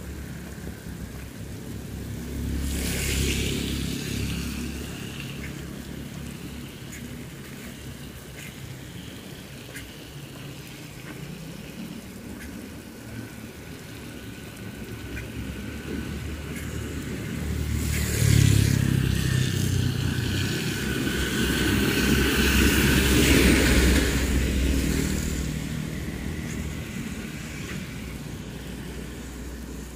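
Motor vehicles passing on a rain-wet road, engines rumbling and tyres hissing on the wet surface: one briefly a few seconds in, and a louder, longer pass from about 18 to 25 seconds in, over a steady hiss of rain.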